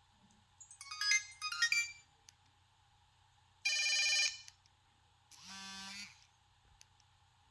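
Pantech Duo mobile phone playing short preloaded tones through its speaker. First come two quick runs of rising electronic notes, then a loud, steady buzzy tone about two-thirds of a second long, then a softer, lower tone near the end.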